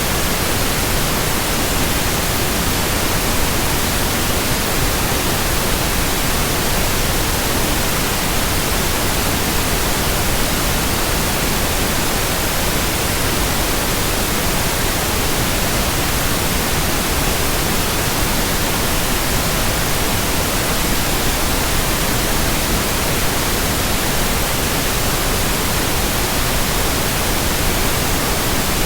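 Steady white noise: an even, unchanging hiss spread across all pitches, with no rhythm, hum or swish of turning blades.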